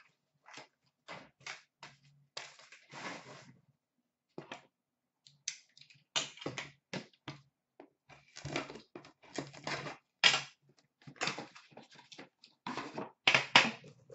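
An Upper Deck The Cup hockey card box being handled and opened: a run of short, irregular rustles, scrapes and knocks of cardboard and plastic as its metal tin comes out onto the glass counter, busier and louder in the second half.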